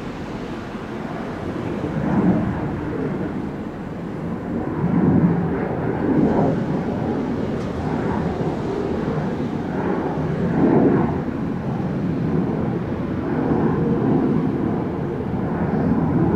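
Airbus A321-211 jet airliner's CFM56 engines heard from the ground as a steady, loud rumble while it climbs out after takeoff, swelling and fading every second or two.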